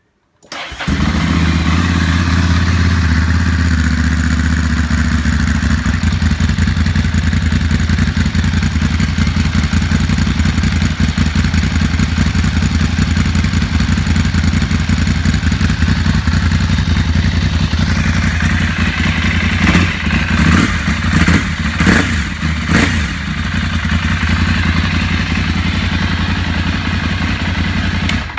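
Ducati Monster 796's air-cooled L-twin engine idling through a Termignoni slip-on silencer with its baffle fitted, with a few quick throttle blips about twenty seconds in.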